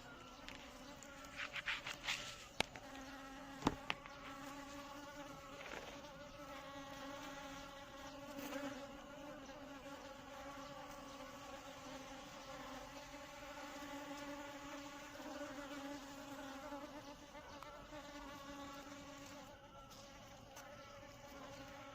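Indian honey bees (Apis cerana indica) buzzing in a steady, even hum. A few sharp clicks come in the first four seconds.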